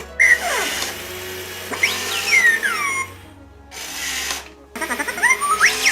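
Thinkway interactive R2-D2 robotic droid toy playing R2-D2's electronic beeps and whistles: sweeping whistles that fall and rise, then a quick run of short chirps near the end.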